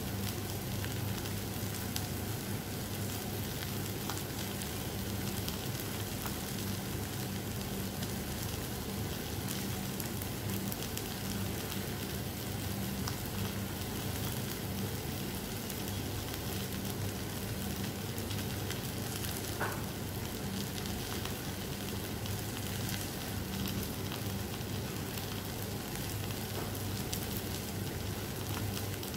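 Eggplant wedges and sliced onion frying in a pan: a steady sizzle with a few small pops, over a low steady hum.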